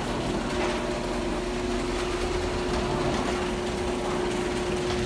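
Garage door opener motor running steadily with an even hum, its trolley pulling the door open along the rail; the repaired hanger latch is holding and the door is pulling nicely.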